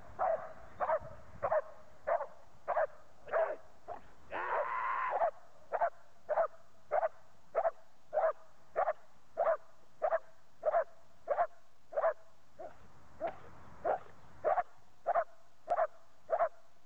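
A Dutch shepherd police dog barks steadily at a decoy, guarding him in a KNPV stick hold-and-bark exercise without biting. The barks come in an even rhythm of about one and a half a second, broken once, about five seconds in, by a longer, louder sound.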